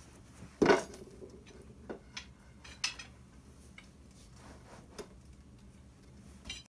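Steel tire iron clinking and knocking against metal as it is handled: one sharp clank with a short ring about a second in, then a few lighter clicks.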